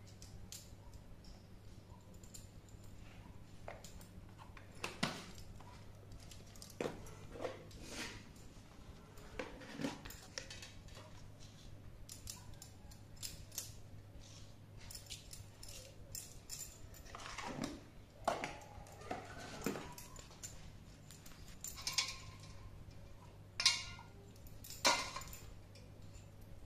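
Scattered light clicks, taps and clinks of a spoon against plastic spice jars and a steel bowl while raw fish is seasoned, a few of them louder near the end, over a faint steady low hum.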